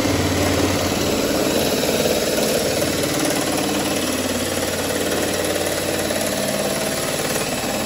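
Cordless Ridgid power tool with a sheet-metal shear head running steadily and chattering as it cuts through the steel of a car's rusted rear quarter panel.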